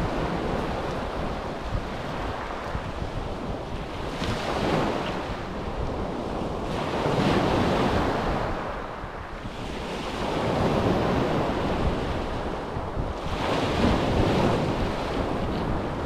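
Waves breaking and washing up a shingle beach, swelling and fading every few seconds, with wind rumbling on the microphone.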